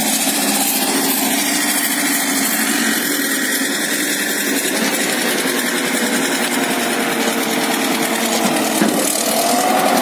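Diesel engine of a tracked logging skidder running steadily at close range, with a faint rising whine near the end.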